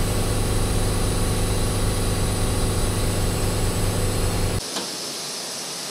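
An engine running steadily at idle with a low rumble, cutting off abruptly about four and a half seconds in.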